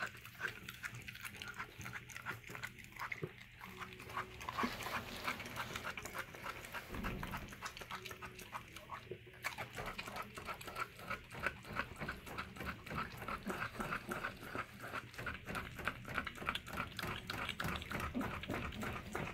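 A dog chewing, licking and tearing at a raw beef strip steak: a steady run of wet smacking and chewing clicks, several a second, with a low thump about seven seconds in.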